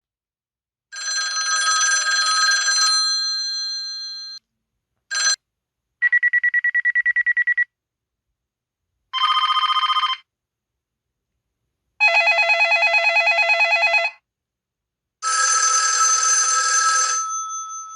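Built-in ringtones of an IM-S220L mobile phone played one after another: six short electronic ring sounds separated by silent gaps. Some are steady tones, two are rapid pulsing trills, and the last rings on and fades away.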